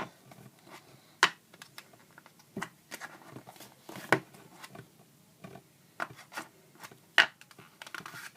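Zippo lighters being handled: irregular sharp metallic clicks and taps, three of them louder than the rest, about a second in, halfway through and near the end.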